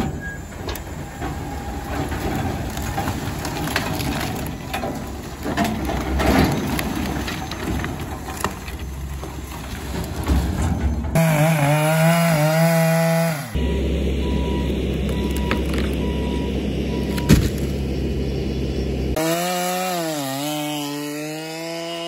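Logs and brush sliding and knocking as they tip out of a dump trailer. Later an engine rises and falls in pitch twice, with steady low mechanical noise between.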